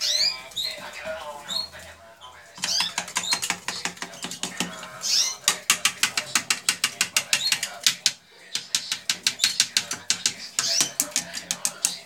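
Canary singing: short rising chirps between long rattling trills of rapidly repeated notes, about six a second.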